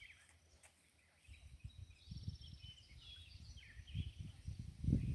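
Small birds chirping and trilling in quick repeated notes, over a low, uneven rumble that grows louder near the end.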